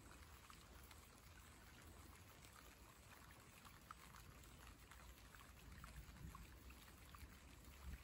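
Faint light rain falling on lake water and lily pads: scattered small drips and pattering over a steady low rumble.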